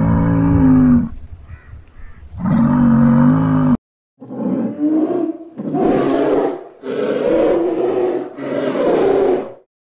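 A large wild mammal roaring and growling: two drawn-out pitched calls, then after a short break four rougher, harsher roars of about a second each.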